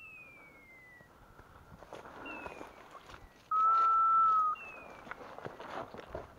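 Electronic beeper on a hunting dog's collar giving one loud, steady, high beep lasting about a second, about three and a half seconds in, with fainter falling tones repeating every couple of seconds. Footsteps rustle through dry brush and leaves.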